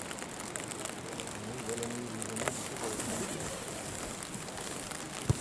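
Outdoor football match ambience: faint, distant voices of players and spectators calling across the pitch over a steady hiss, with one sharp thump near the end.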